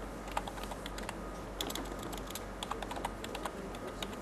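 Computer keyboard being typed on: light, irregular key clicks, some in quick runs of two or three.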